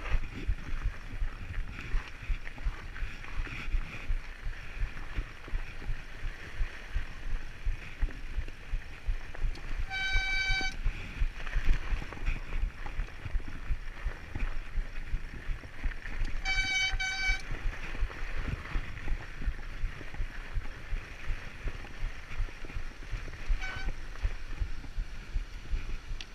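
Fat-tyre bike riding over packed snow: a steady crunching rumble of the wide tyres, with frequent small knocks and rattles from the bike over bumps. Twice a short, steady high-pitched squeal cuts in for under a second, with a fainter third near the end.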